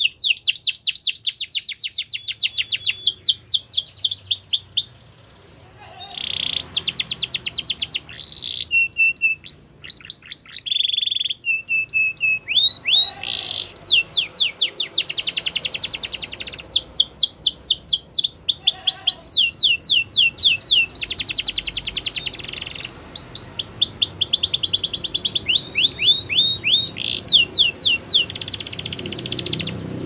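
Domestic canary singing: long runs of rapid, high-pitched trills of repeated notes, switching between faster and slower rolls, with a short break about five seconds in.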